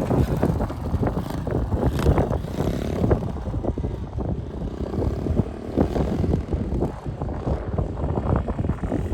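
Small pit bike engine running as the bike is ridden, heard as an uneven low rumble with wind buffeting the microphone.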